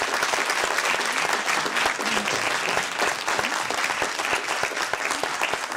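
An audience applauding steadily, many people clapping in a hall.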